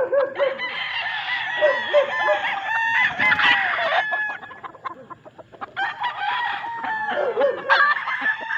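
Several gamecocks crowing, their calls overlapping, with a lull of a couple of seconds about four seconds in before the crowing picks up again.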